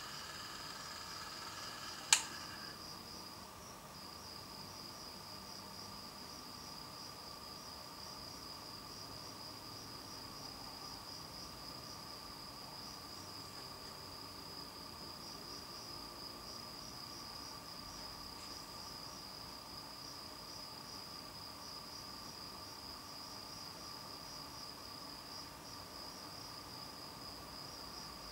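Crickets chirping in a steady, high, fast-pulsing trill, with a fainter steady tone lower down. A single sharp click comes about two seconds in, and a faint whine underneath stops just after it.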